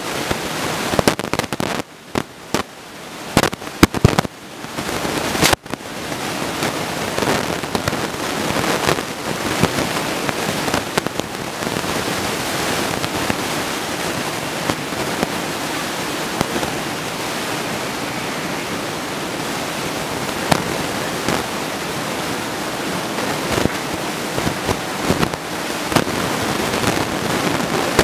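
Steady rush of breaking ocean surf with wind on the microphone. For the first several seconds it is broken by crackles and sharp pops.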